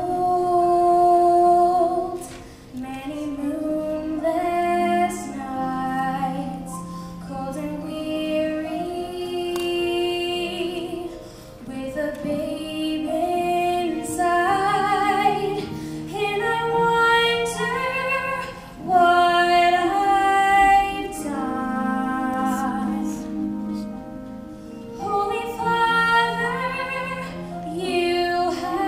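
A young woman singing a slow solo melody in phrases, with a women's choir holding sustained harmony beneath her.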